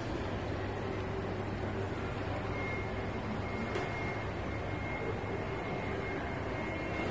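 Steady indoor shopping-mall background hum, an even drone with no voices standing out, joined by a faint steady high tone about two and a half seconds in.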